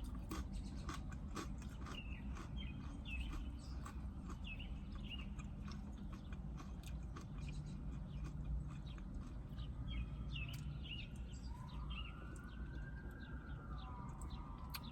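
Small birds chirp in short repeated notes, and from about ten seconds in a faint siren wails, rising and falling slowly. Scattered soft clicks sit underneath.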